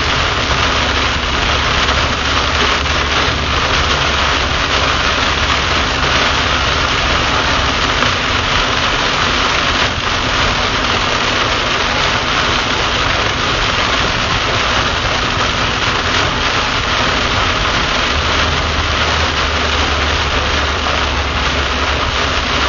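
Steady wash of heavy rain on a moving car, heard from inside the cabin, mixed with tyre noise on the flooded road and a low engine hum underneath.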